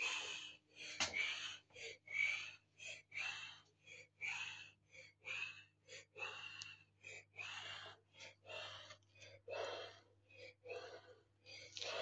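Breathy, hushed vocal sounds close to the microphone: short puffs of breath about twice a second, without any clear voice tone, over a faint steady low hum.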